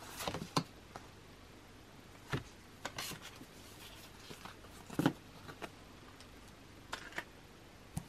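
Postcards and photo cards being handled: scattered short taps and rustles of card against card and the cardboard box, the loudest about five seconds in.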